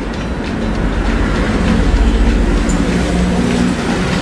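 Steady low rumble of a passing heavy vehicle, building to its loudest about two seconds in and then easing slightly.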